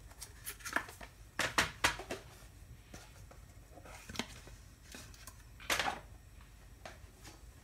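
Light handling noises on a workbench: a few short rustles and clicks, a cluster about a second and a half in and another near six seconds, over a faint low room hum.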